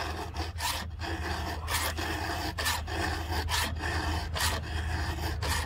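Round file rasping across the cutter teeth of a chainsaw chain, hand strokes about once a second, some coming in quick pairs, as the chain is touched up with light pressure.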